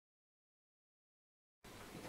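Near silence: the sound track is completely silent, and faint room noise starts near the end as the next scene begins.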